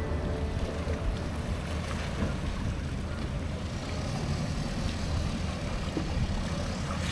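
Steady low rumble of a boat running across open water.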